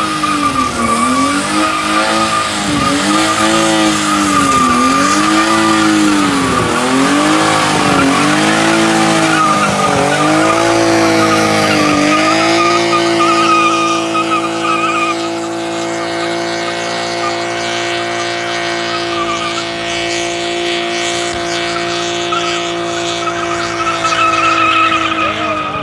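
BMW E36 coupe doing a burnout, its engine revving hard with the rear tyres spinning and squealing. For the first half the revs swing up and down about every second and a half; from about halfway they are held at a steady high pitch, dipping briefly near the end.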